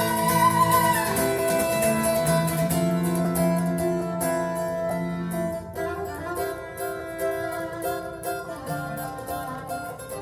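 Recorded music with bowed and plucked strings playing through TriArt Hartley hi-fi loudspeakers. Long held notes give way to lighter, picked notes about six seconds in.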